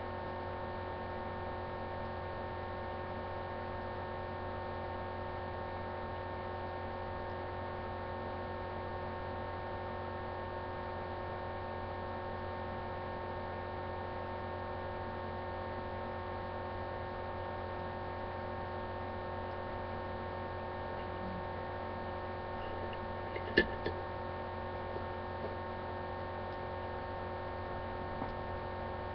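Steady electrical hum made of several fixed tones, with one sharp click about two-thirds of the way through.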